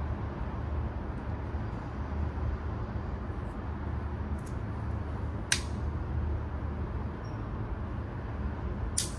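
Steady low rumble of outdoor city ambience, like distant traffic. Two sharp clicks come over it, one about five and a half seconds in and one near the end.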